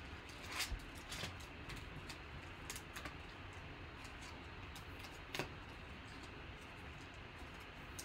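Faint crinkling of a plastic trading-card pack wrapper and the light clicks of cards being handled and slid against each other, in scattered irregular ticks. The sharpest click comes about five and a half seconds in.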